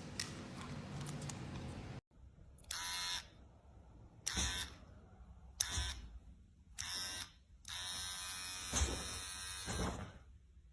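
A small electric motor buzzing in short bursts, switched on and off four times for about half a second each, then running for about two seconds.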